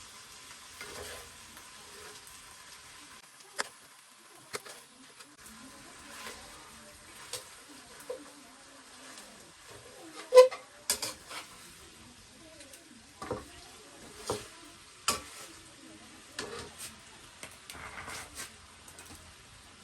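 Food sizzling in a pan with a faint steady hiss, while a spatula stirs and knocks against the pan in a dozen or so irregular sharp clinks, the loudest about halfway through.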